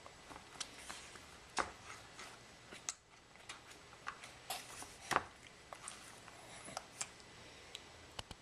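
Scattered faint clicks and small smacks of a toddler eating yogurt, spaced irregularly, the sharpest about five seconds in.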